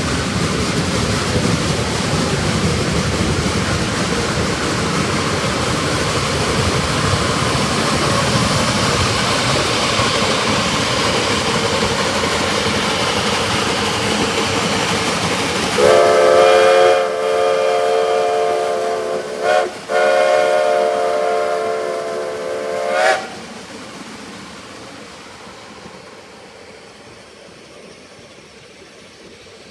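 Shay geared steam locomotive No. 15 working hard up a steep 9% grade, its exhaust and running gear making a loud, dense, steady noise. About sixteen seconds in, its chime whistle sounds a long blast, breaks briefly, then blows again for about three seconds. After that the locomotive's sound fades away.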